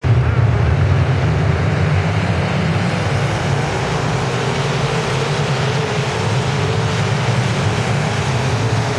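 A field of dirt late model race cars racing around a dirt oval, their V8 engines merging into one loud, steady drone that cuts in suddenly at the start.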